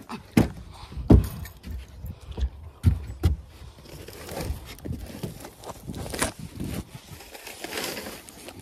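Thumps and knocks of a person climbing into a pickup truck bed and stepping about on its ribbed plastic bed liner, followed by rustling and scraping as bags and cardboard firewood boxes are shifted.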